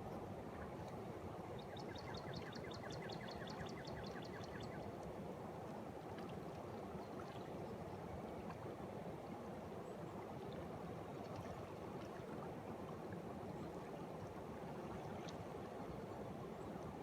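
Water of a tubular spring welling up from an underground cavern and flowing, a steady bubbling rush. A bird sings a fast trill of short high notes about two seconds in, lasting about three seconds.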